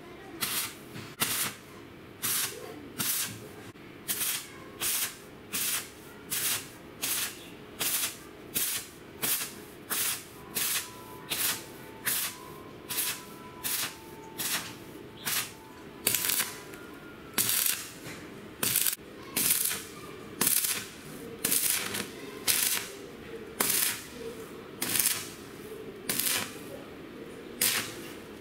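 Stick (arc) welding with a KV-19 rod on steel flat bar: the arc crackles and spits in short, sharp bursts, a little faster than once a second.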